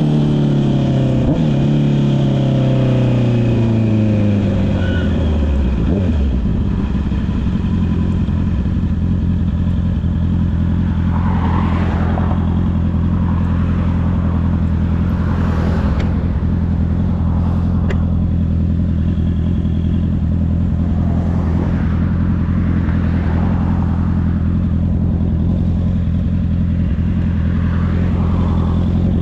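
Honda CB650R's inline-four engine breathing through an Akrapovic exhaust, its revs falling over the first six seconds as the bike slows, then idling steadily. The revs rise sharply again right at the end.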